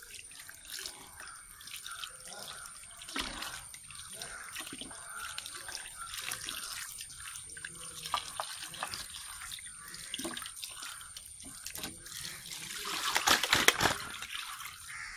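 Tap water running and splashing into a steel bowl while peeled cassava pieces are rubbed clean of mud by hand, with small knocks of the pieces against the bowl. Near the end there is a louder rush of water as the bowl is tipped to drain.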